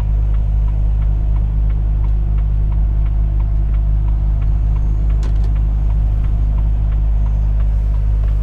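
Volvo FH 460 truck's D13 straight-six diesel running steadily under way, a deep constant drone. A faint regular ticking runs underneath, and a single sharp click comes about five seconds in.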